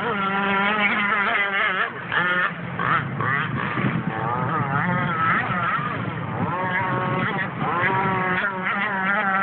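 Aquacraft Rio 51Z RC speedboat's two-stroke gas engine with a Bonzi tuned pipe, a buzzing whine whose pitch keeps rising and falling as the throttle changes.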